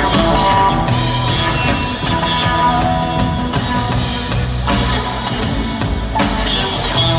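Live rock trio of electric guitar, upright double bass and drum kit playing a passage with no singing, recorded from within the audience in a concert hall.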